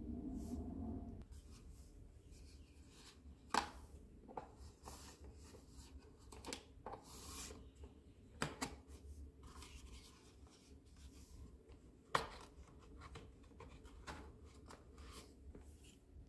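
Hard plastic toy parts being handled and pushed together: faint rubbing and scraping, with a few sharp clicks, the loudest about three and a half seconds in and again about twelve seconds in.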